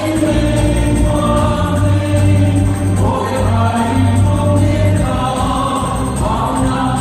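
A choir singing a song together with musical accompaniment, in long held notes.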